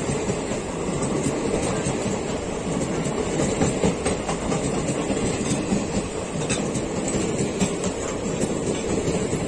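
Passenger coaches of the Silchar–Coimbatore weekly superfast express rolling past a platform. The steel wheels keep up a steady rumble on the rails, with clickety-clack over the rail joints and a few sharper clacks.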